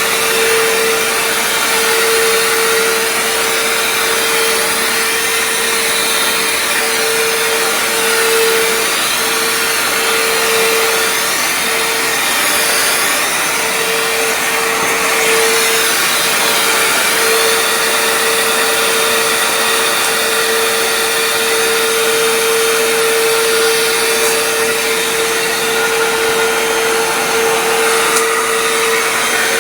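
Hoover Floormate FH40150 hard floor cleaner running steadily, its motor giving an unbroken whine with a constant pitch over a loud rushing noise.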